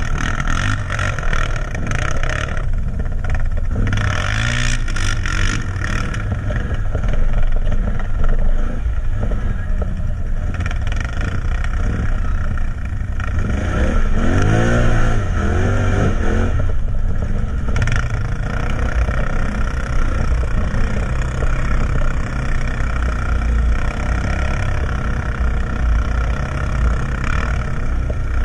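ATV engine running as the quad drives over a rough forest trail. The revs rise and fall in short sweeps about four seconds in and again around the middle.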